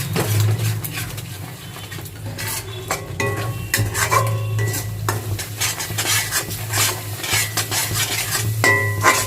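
A spoon stirring and scraping fried spice masala around a kadai, with light sizzling and occasional short metallic clinks against the pan.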